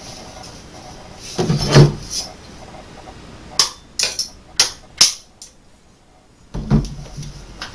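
Sharp metal clicks and knocks as the parts of a 20 gauge Remington 870 Express shotgun's action are worked and forced into the receiver: a low thump, then a quick run of five clicks, and another knock near the end.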